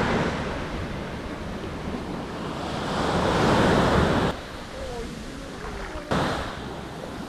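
Sea surf washing onto a beach, with wind on the microphone. A wave swells louder about three to four seconds in, then the sound drops suddenly, with another short rise about six seconds in.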